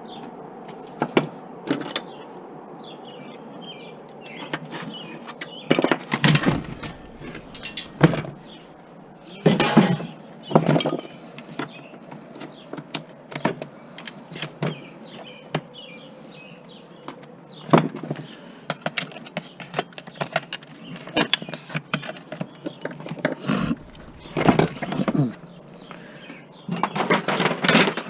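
Hand dismantling of scrap electronics: repeated knocks, cracks and clattering of plastic and metal parts being pried, snapped and dropped, in irregular bursts with several louder clusters.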